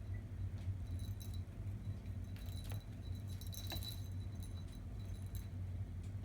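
Scattered light clinks and jingling rattles, busiest a few seconds in, over a steady low hum.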